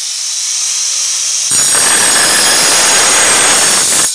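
Angle grinder on a homemade slide saw running with a high whine. About a second and a half in, its blade starts cutting into iron bar for a 45-degree miter cut, a loud grinding noise that stops just before the end.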